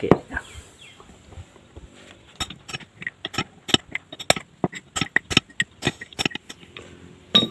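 Light hammer taps on a makeshift driver, knocking a new oil seal into a motorcycle front fork tube, about four quick taps a second starting about two seconds in. This is the new seal being seated to replace one that was leaking fork oil.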